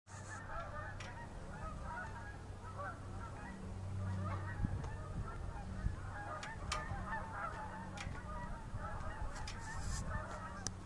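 A flock of domestic fowl calling, with many short overlapping calls, over a low steady hum and a few sharp clicks.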